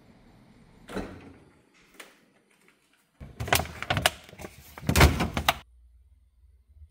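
Refrigerator door and shelf being handled: a single knock about a second in, then a run of sharp knocks and rattles, loudest about five seconds in, that stops suddenly.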